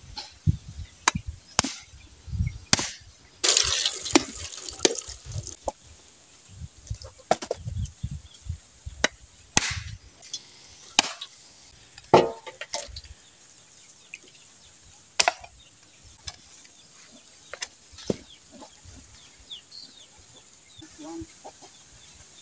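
Bolo knife blade striking husked mature coconuts as they are split open for copra: a series of sharp, irregular knocks on the hard shells.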